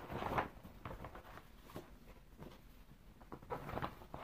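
Faint rustling and crinkling of a clear vinyl zippered project bag being handled, with a louder patch near the start and another near the end.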